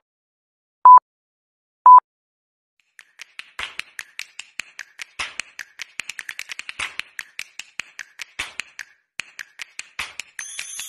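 Countdown-intro sound effects: short electronic beeps, one a second, keyed to the countdown digits, then a long run of rapid, irregular sharp clicks. A bright jingling shimmer starts near the end.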